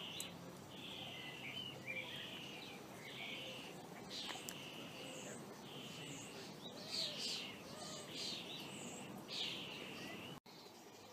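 Songbirds singing, a steady run of short high phrases one after another. The sound cuts out for an instant near the end.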